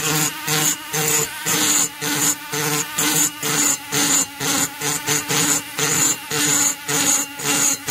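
Flexible-shaft rotary grinder with a small bit grinding the aluminium lower transfer port of an Echo CS-670 chainsaw cylinder during porting: a small motor whine broken into short grinding strokes about twice a second.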